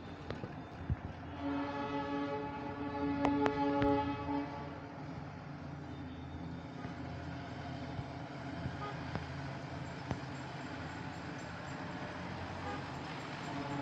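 Darjeeling Himalayan Railway toy-train locomotive whistle sounding for about three seconds, then the train running as a steady low rumble, with the whistle starting again faintly near the end.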